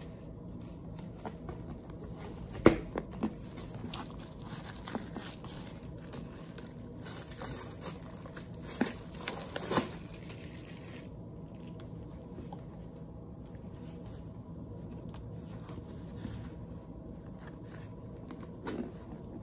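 Clear plastic shrink-wrap being torn and peeled off a boxed album set, crinkling with a few sharp crackles, the loudest about three seconds in and near ten seconds.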